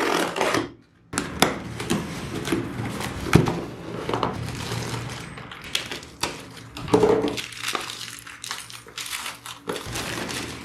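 Packaging of a Bluetooth speaker being opened and handled by hand: crinkling and rustling with many irregular clicks and knocks.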